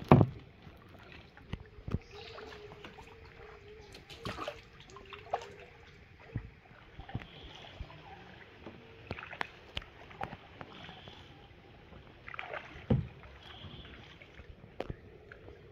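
Kayak paddling: a paddle dipping in the water and knocking against the plastic kayak hull in irregular clicks and knocks. The loudest knock comes just after the start and another strong one about thirteen seconds in.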